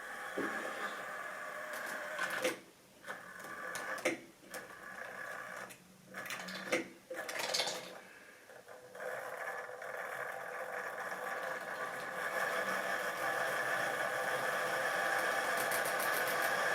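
Electric motor of a model railway locomotive whirring steadily as the train runs, with a few sharp clicks. In the first half the sound drops away briefly several times, then it runs steadily and grows a little louder.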